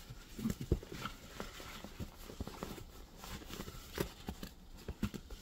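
Handling of a cotton canvas drawstring pouch as it is turned over and opened: soft fabric rustling with scattered light taps and clicks.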